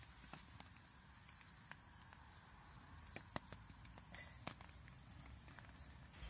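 Near silence: faint background hiss with a few soft, scattered clicks.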